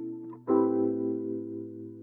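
Background music: soft keyboard chords, one fading out and a new chord struck about half a second in that slowly dies away.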